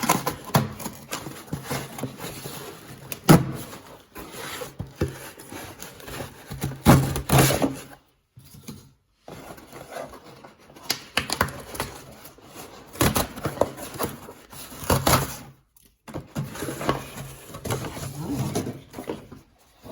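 A small cardboard package being opened and its contents handled: irregular rustling, scraping and knocks, with short pauses between bursts.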